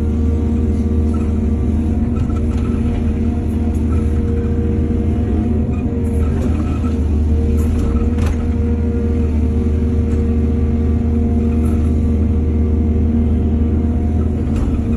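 Heavy diesel engine of earthmoving equipment running steadily, with a few faint metallic clanks about six and eight seconds in.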